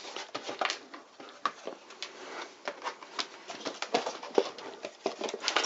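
Irregular clicks and light taps of hands handling the opened plastic case of a car battery booster pack and the parts inside it.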